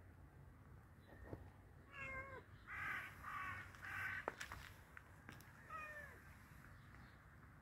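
A crow caws three times in quick succession, harsh and rasping, about three to four seconds in. A shorter wavering call comes just before the caws and another about six seconds in.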